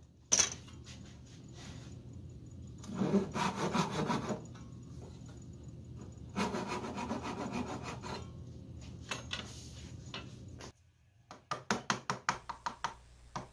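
A hand backsaw cuts into a wooden plane body in two bursts of short strokes, after a single sharp knock at the start. Near the end a wooden mallet drives a chisel into the wood with a quick run of light taps, about five a second.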